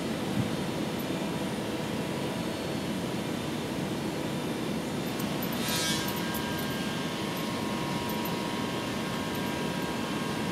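A woodworking planer running steadily, heard from a neighbouring workshop. A little past halfway comes a brief, higher rasp, typical of a piece of wood being fed through and planed, and a faint steady whine from then on.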